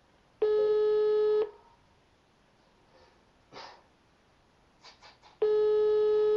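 Telephone ringback tone heard over the line: two one-second rings of a steady tone, five seconds apart. This is the German ringing pattern, and it means the call has been put through and is ringing unanswered. Faint short noises come between the rings.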